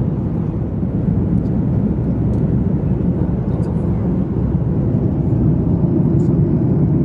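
Steady low rumble inside the economy cabin of a Boeing 737 MAX 8 in flight: engine noise and air rushing past the fuselage, with a few faint ticks.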